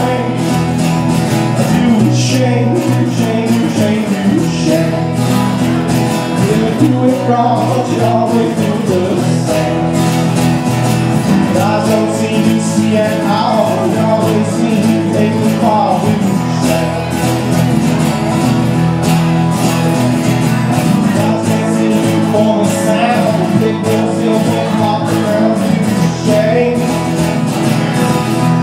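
Live acoustic band music: two acoustic guitars strummed and picked over a bass guitar, playing a country-tinged song at a steady, full level.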